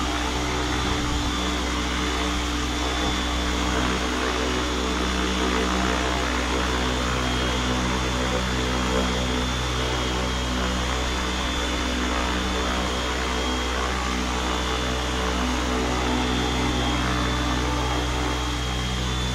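700E DFC electric RC helicopter hovering: a steady motor and gear whine mixed with the whoosh of its spinning main and tail rotor blades.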